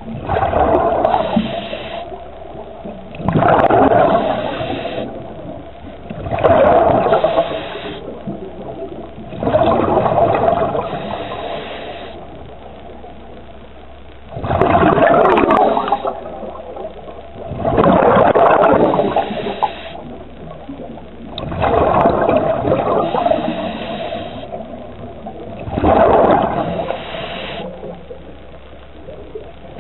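Scuba diver's regulator breathing, heard underwater: a loud rush of exhaled bubbles about every three to four seconds, eight in all, with a quieter hiss between breaths.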